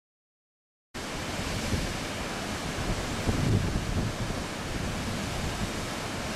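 Steady rush of waterfalls pouring into rocky stream pools, starting abruptly about a second in, with wind buffeting the microphone in low gusts.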